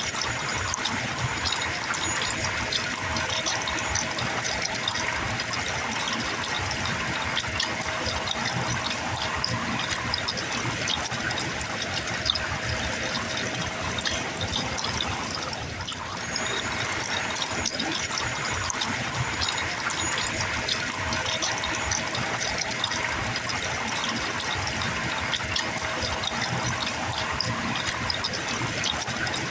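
Rainwater gushing out of a gutter, splashing steadily, with quiet gurgling bubbles layered in. There is a brief dip in level about halfway through.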